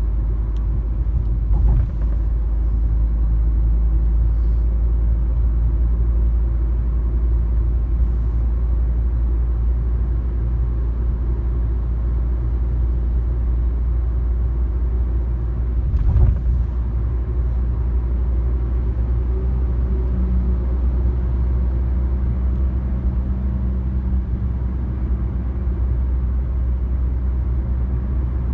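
Steady low rumble of a car driving at speed, engine and tyre noise heard from inside the cabin, with two brief knocks, about two seconds in and about sixteen seconds in.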